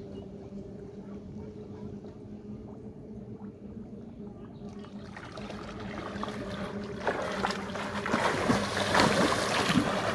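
Water churning and splashing, with scraping and clicking, building from about halfway and loudest near the end as a stuck fishing magnet is hauled free on its rope. A steady low hum runs underneath.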